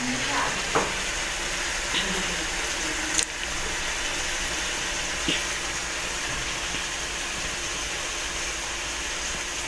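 Chicken and sliced hot dogs frying in oil in a wok, a steady sizzling hiss, with a sharp click about three seconds in.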